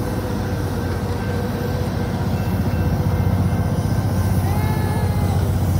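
Amtrak California double-deck passenger cars rolling past, a steady low rumble of steel wheels on the rails that grows a little louder about halfway through.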